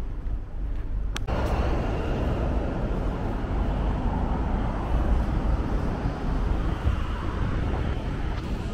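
Road traffic from a busy multi-lane street, cars passing as a steady wash of noise that comes in suddenly after a click about a second in, with low wind rumble on the microphone throughout.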